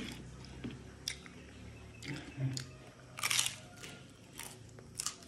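Crisp crunching as a kiping rice wafer coated in latik coconut caramel is bitten and chewed: a string of sharp crunches, the loudest cluster about three seconds in.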